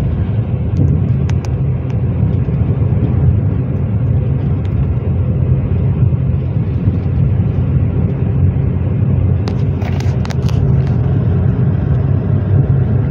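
Car interior road noise while driving: a steady low rumble of engine and tyres, with a few brief clicks about a second in and again near the end.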